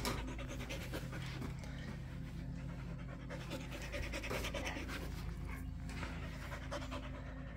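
A dog panting quickly and steadily, close up, out of breath from playing fetch.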